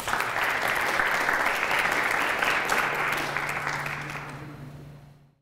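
Audience applauding after a talk: many hands clapping together, starting all at once and tailing off near the end.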